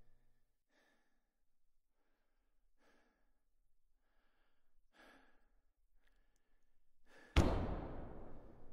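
A few faint breathy puffs, one every second or so, then a sudden loud hit about seven seconds in that dies away over the next couple of seconds: an edited sound effect.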